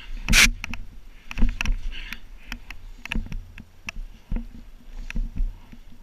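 Crunching and scuffing in deep snow with rustling clothing as a fallen snowboarder moves about, broken by irregular sharp knocks and a loud scuff about half a second in.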